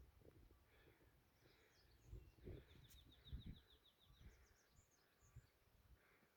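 Faint birdsong: scattered high chirps and a quick trill of about a dozen notes a little past the middle, over low rumbling wind or handling noise.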